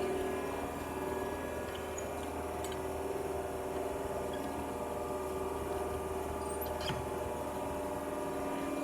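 Hydraulic power unit of a Diacro CNC bender running with a steady hum, with a few light clicks.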